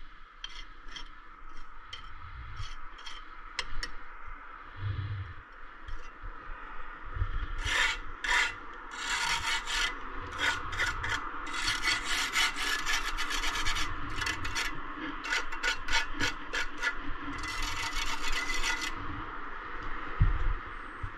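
A hand tool rubbing and scraping over brick and mortar in quick rasping strokes. The strokes are scattered at first, then come thick and fast for about ten seconds from a third of the way in.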